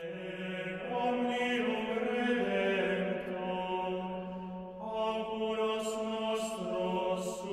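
Chanted singing as outro music: slow, held notes that step from pitch to pitch, with a short pause for breath about five seconds in.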